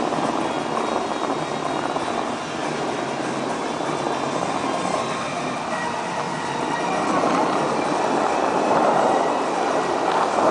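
Dubai Fountain's water jets shooting up and spray falling back into the lake: a steady rushing hiss that swells a little in the second half.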